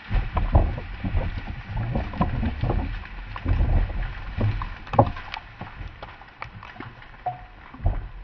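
Mud, water and debris thrown up by a dynamite blast on a beaver dam raining back down, an irregular series of thumps and splatters over a low rumble. The strikes are dense at first, with a loud one about five seconds in, and thin out towards the end.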